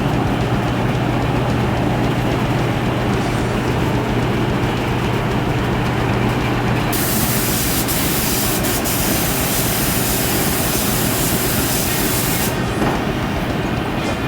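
Paint spray gun hissing steadily for about five seconds, starting about seven seconds in, as marbleizer paint is sprayed, over a steady low hum.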